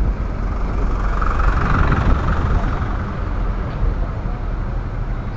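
Car driving slowly through town traffic: steady low rumble of engine and road noise, swelling for a couple of seconds about a second in.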